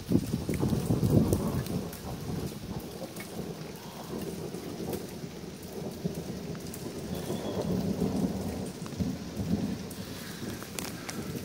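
Thunder rolling: a low rumble loudest in the first couple of seconds, then swelling and fading again through the rest, over steady rain with scattered drips.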